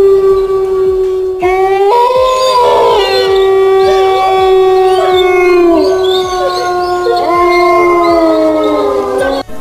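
Canine howling in chorus: one long held note, with more voices joining about a second and a half in, overlapping with slow rising and falling glides, and cutting off abruptly near the end.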